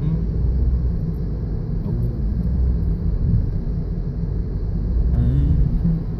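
Car driving at speed, heard from inside the cabin: a steady low rumble of engine and tyres on the road.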